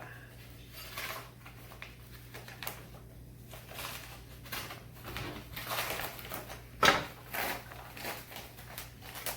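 A cardboard mailer being opened and its cardboard pieces handled: irregular rustling and scraping, with one sharp, louder crack about seven seconds in.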